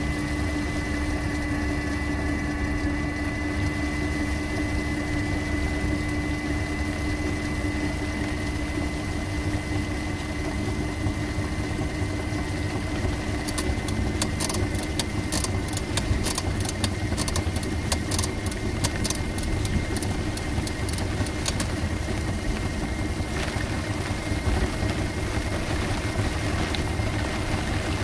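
Ride noise inside the cabin of a Better.bike PEBL pedal-electric vehicle on a wet road: a steady low rumble with a constant whine. Roughly halfway through, a spell of sharp, irregular ticks lasts several seconds.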